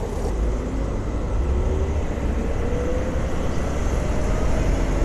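Ola S1 Pro Gen 2 electric scooter on the move: steady road and wind noise with heavy rumble on the microphone, and a faint motor whine that rises slowly in pitch as the scooter gathers speed.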